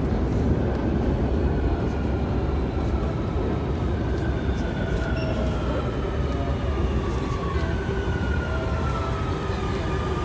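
Electric metro train pulling into an underground station platform: a steady heavy rumble of wheels on rails, with electric motor whines that slide slowly down in pitch as the train slows.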